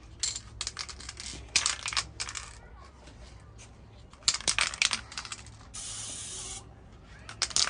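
Aerosol can of gold spray paint: the mixing ball clatters in several quick runs of sharp clicks as the can is shaken, and one spray hiss of just under a second comes about six seconds in.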